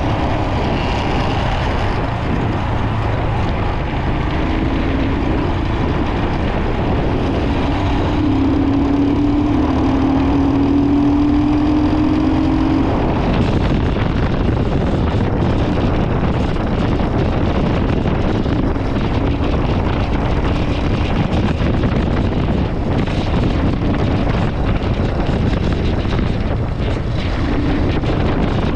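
Royal Enfield Himalayan 411's single-cylinder engine running under load on a rough off-road climb. About a third of the way in, its note climbs steadily for several seconds and then breaks off abruptly.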